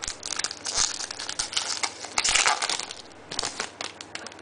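Foil wrapper of an SP Authentic hockey card pack crinkling as it is handled and torn open, in several short crackly bursts.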